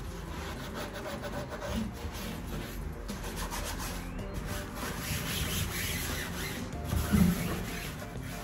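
Scouring sponge scrubbing a stainless steel sink, a steady rubbing scrape.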